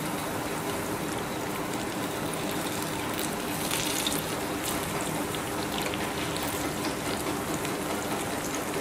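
Moong dal malpuas frying in hot oil on a low flame: a steady sizzle with faint crackles.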